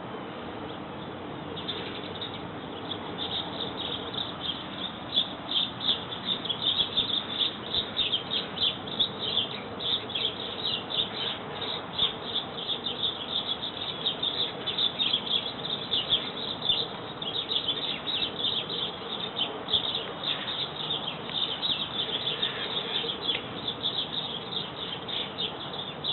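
Green parrots chattering in a tree: a dense stream of short, high chirps that starts about two seconds in and keeps up throughout.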